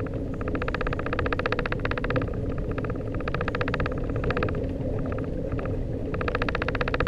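Outboard motor running steadily under a fishing reel's fast ratchet clicking, which comes in spells of one to two seconds with short pauses between.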